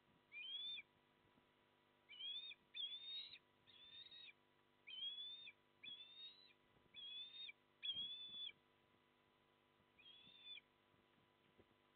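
Osprey giving a series of short whistled call notes, about ten of them, each arching slightly in pitch, with a pause near the end before a last call.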